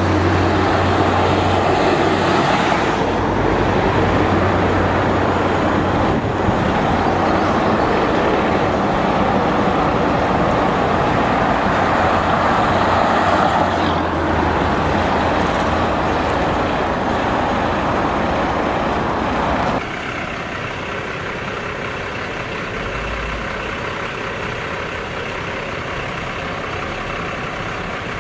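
Road traffic noise from cars and heavy trucks on a highway, a steady rumble with a low hum. About twenty seconds in it drops suddenly to a quieter, steadier sound.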